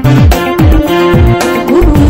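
Somali pop song: a woman singing a held note over a synthesizer backing with a drum beat and deep bass notes that slide down in pitch several times.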